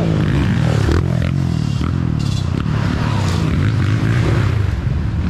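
Several trail motorcycles riding past at once, their engines revving up and down.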